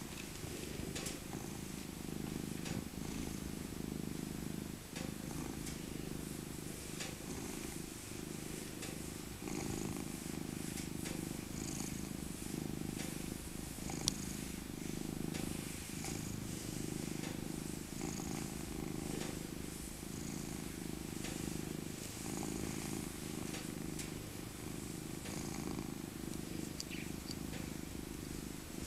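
Tabby cat purring steadily while being stroked, the purr swelling and easing in a cycle every couple of seconds with her breathing in and out.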